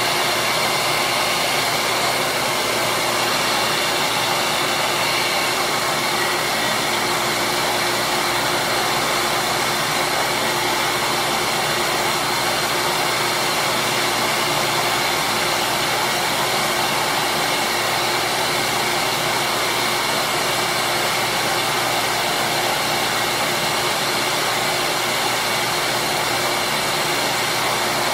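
Small benchtop disc sander running steadily, a continuous whir, while small plastic slider pieces are held against its sanding disc to shape them.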